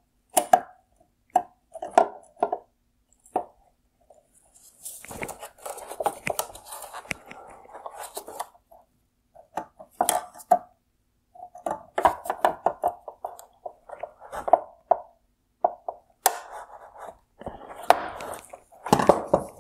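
Needle-nose pliers working at the plastic headlight housing to release a mounting tab: irregular clicks, taps and short scrapes of metal on plastic.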